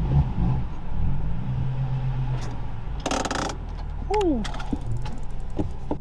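BMW M4's S55 twin-turbo straight-six, breathing through resonated equal-length midpipes and stock catted downpipes, running low and steady, heard from inside the cabin. Over it come on-screen like-button sound effects: a short burst of noise about three seconds in, a quick falling tone, then a few clicks near the end.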